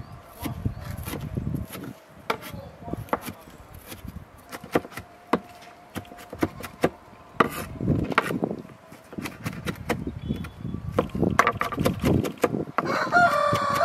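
Kitchen knife chopping green onions on a wooden cutting board in a run of sharp knocks. A chicken calls near the end.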